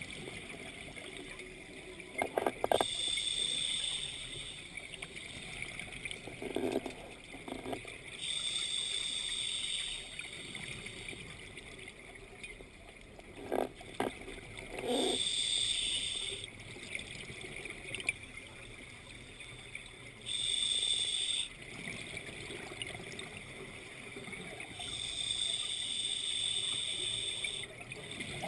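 Scuba regulator breathing underwater: a hiss of air on each breath about every five to six seconds, five times, with short bursts of bubbling exhaust.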